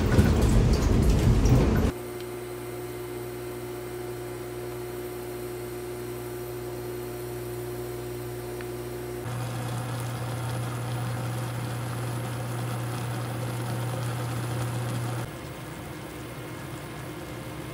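A loud rushing noise for about two seconds, then a steady electrical hum with a low buzz and a fainter higher tone from an induction cooker heating a pot of instant ramen. The hum shifts in strength twice.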